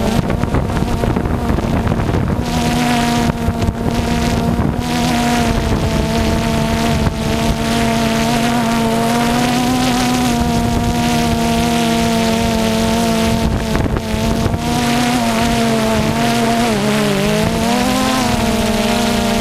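DJI Phantom quadcopter's motors and propellers buzzing at a steady pitch over a rushing hiss of wind. About seventeen seconds in, the pitch dips and climbs back as the motors change speed.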